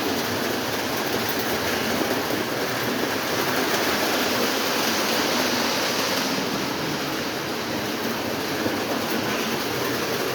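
Lionel O27 model trains running on their track: a steady rolling rumble and motor hum, a little louder in the middle of the stretch.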